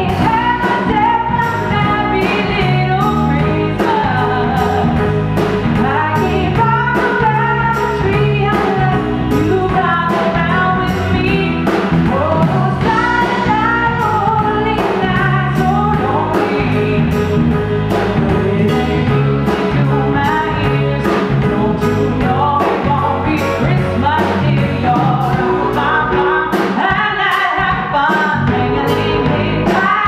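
Female vocalist singing live with a band, drums keeping a steady beat under the melody.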